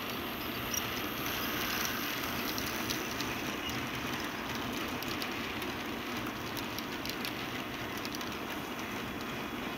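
HO-scale model train running along the track: a steady rolling rattle of small metal wheels on the rails, with scattered light clicks.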